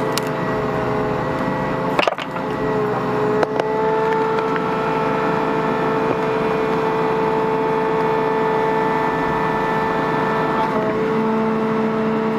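Bobcat mini excavator's diesel engine running steadily under hydraulic load as it works the tree out. Its whine steps up in pitch about three and a half seconds in and shifts again near the end. Two sharp knocks come about two and three and a half seconds in.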